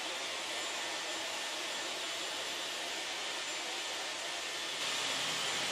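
Handheld hair dryer blowing a steady rush of air with a faint high whine, getting slightly louder about five seconds in.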